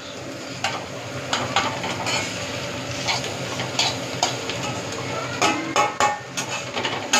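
Metal spatula scraping and clinking against a metal wok as sliced vegetables are stir-fried, with irregular sharp clinks over a steady sizzle of frying.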